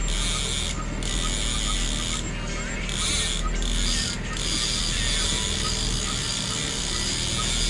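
Boat's small outboard motor running steadily at trolling speed under a steady hiss, with light mechanical ratcheting from the fishing gear.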